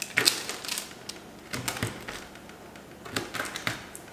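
Quick clusters of light clicks and taps, three short bursts a second or so apart.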